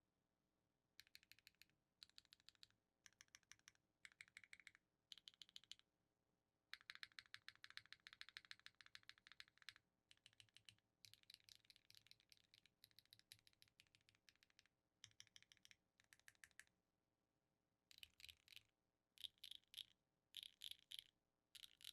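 Typing on a Neo 65 mechanical keyboard with a carbon fiber plate, Geon Raptor x HMX linear switches and Keykobo Signet keycaps: runs of quick keystrokes in bursts with short pauses between them, the longest run a third of the way in.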